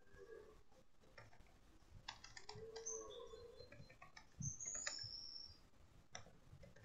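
Faint typing on a computer keyboard: a quick run of key clicks about two seconds in, then a few scattered taps. A few faint high chirps come near the middle.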